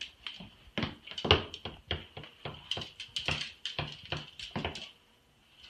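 Footsteps tapping on a hard wooden floor, short irregular clicks about three a second, over a faint steady high whine.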